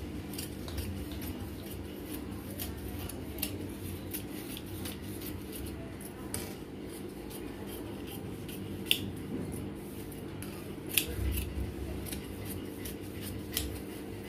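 Tailoring scissors snipping through blouse fabric, a run of short crisp cuts at an uneven pace, over a faint steady hum.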